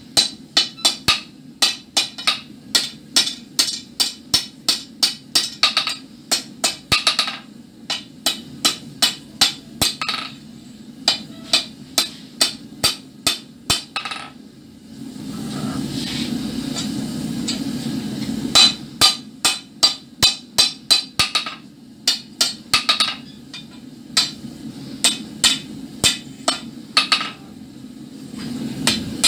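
Hand hammer striking red-hot wrought iron on a steel anvil while curling a scroll, in runs of sharp ringing blows about two a second with short pauses. A few seconds of steady low rushing noise replace the blows near the middle.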